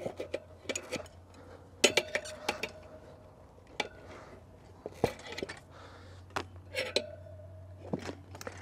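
Steel tire spoons clinking and scraping against a spoked motorcycle wheel as a front tire's bead is levered off the rim: an irregular string of sharp metal clicks, a few of them ringing briefly.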